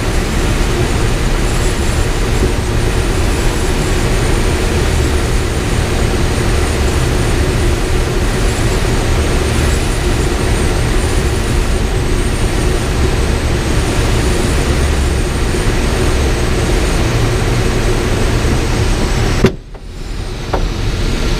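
Steady rush of air over the canopy of an ASK 13 glider in flight, heard inside the cockpit. About two seconds before the end a click is followed by a sudden drop to near quiet for half a second, then the rush returns.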